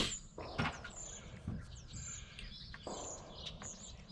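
Birds chirping, short high chirps about once a second, over faint background noise, with a sharp click at the very start.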